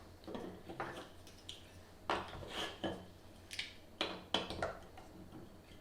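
Plastic Duplo bricks clacking and clicking as they are handled, pressed together and set down, a string of short sharp knocks at irregular intervals.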